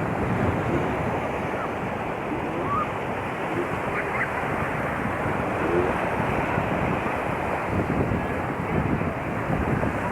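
Sea waves washing onto a beach in a steady wash of surf, with wind buffeting the microphone.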